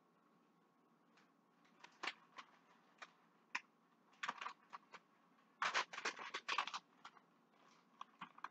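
Hands handling things at the stove: a few sharp light clicks and taps from about two seconds in, then about a second of crisp crinkling of paper a little past the middle.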